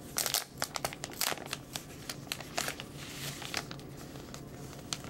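Paper envelope crinkling and rustling in the hands as it is opened and an install CD in a paper sleeve is slid out; a quick run of sharp crackles in the first second or so, then softer, scattered rustling.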